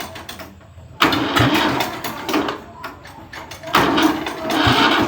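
Restored tractor engine being started: two loud bursts of engine noise, each beginning suddenly, the first about a second in and fading away, the second about a second before the end.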